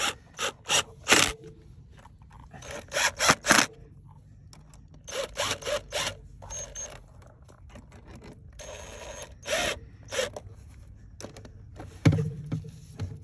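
A hand tool tightening the stainless band clamps of a shielded rubber coupling on 4-inch sewer pipe, heard as short bursts of scraping, ratchet-like clicks with pauses between.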